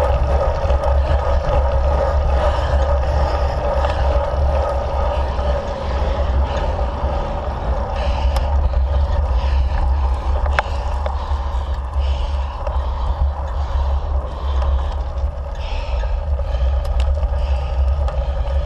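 Steady wind and road rumble on a bicycle-mounted camera's microphone while riding a road bike on pavement, with a constant hum and a few faint ticks.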